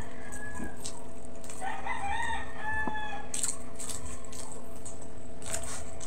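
A rooster crows once, a call of about a second and a half starting roughly a second and a half in, over a steady low hum. Short wet chewing and lip-smacking sounds of someone eating come later.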